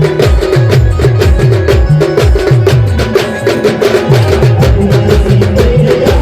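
Adivasi star band playing loud, fast music: a rapid run of deep drum hits that each drop in pitch, over a held melody line and sharp clicking percussion.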